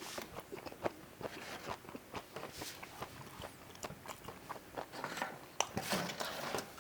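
Close-miked mouth sounds of a person chewing a bite of hot dog topped with bacon strips and cherry peppers: irregular wet clicks, smacks and light crunches.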